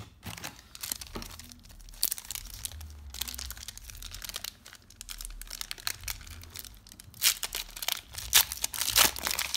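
Foil wrapper of a 1993–94 Upper Deck basketball card pack crinkling and tearing as it is opened by hand. The crackling is loudest in the last couple of seconds.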